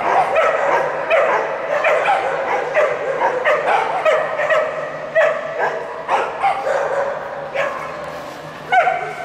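Ibizan hound giving a rapid string of high yips and short barks in play. The yips thin out and quieten toward the end, then comes one louder yelp.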